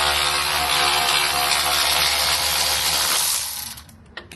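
Steady running-machine noise, a hiss over a low hum. It dies away about three and a half seconds in, leaving a few sharp clicks.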